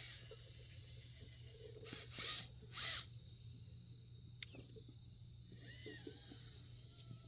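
Faint 1/10 scale RC rock crawler working over rocks: its electric motor and geared drivetrain whir in two short bursts about two and three seconds in, followed by a single sharp click.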